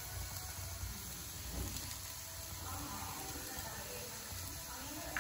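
Faint, steady sizzle of chopped onions and green chillies frying in oil in a pan.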